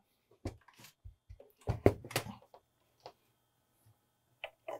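Light knocks and clicks from handling the opened HP 432A power meter's metal chassis and pushing a power cord plug into its socket. The loudest knocks come in a cluster about two seconds in, with a few more clicks near the end.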